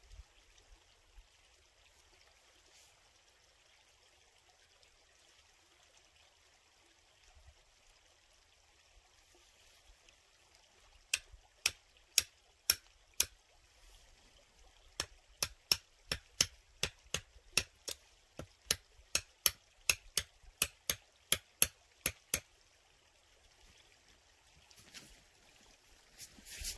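Tent stake being hammered in: a few sharp knocks about half a second apart, then, after a short pause, a steady run of about twenty more at roughly three a second.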